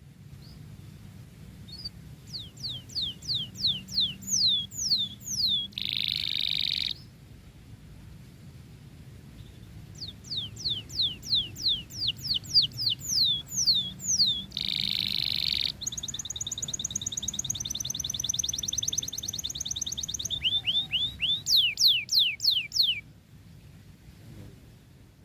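Domestic canary singing in loud, vigorous phrases: runs of quick, high falling whistled notes, broken twice by a short harsh buzzy note, then a fast rolling trill and a final run of falling notes that stops a couple of seconds before the end.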